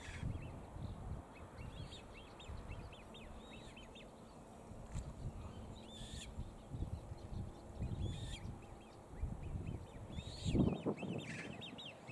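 Birds calling in the background, many short, quick, high calls with a few louder ones, over a low uneven rumble that swells about ten seconds in.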